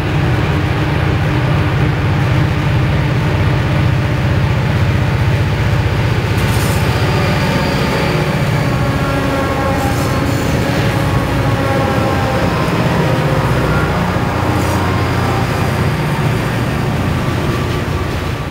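A train in motion: a steady heavy rumble with faint ringing tones over it and a few sharp clanks, fading out at the end.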